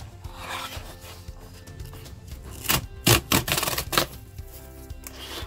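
A cardboard box being handled on a table: a soft rubbing as it slides, then a quick run of sharp scrapes and knocks a little under three seconds in as it is picked up and tilted. Quiet background music plays under it.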